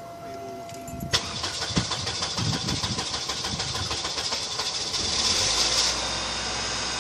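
Oldsmobile Alero's starter cranking the engine for about four seconds before it catches and runs: a hard start.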